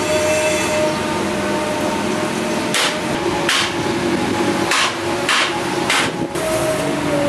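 Five hammer blows on metal, starting about three seconds in and coming irregularly, roughly half a second to a second apart, over a steady background hum.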